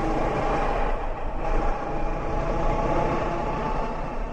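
Kawasaki Versys motorcycle engine running steadily at cruising speed, with wind rushing over the microphone.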